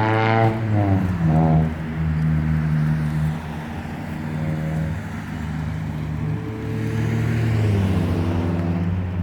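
Motor vehicle engines going by on the road, one dropping in pitch in the first second as it passes, then a steady engine note with small rises and falls.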